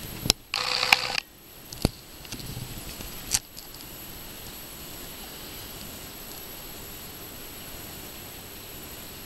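A few sharp clicks and a short rush of noise in the first few seconds, then the steady noise of running aquarium equipment such as the filters and air bubbler.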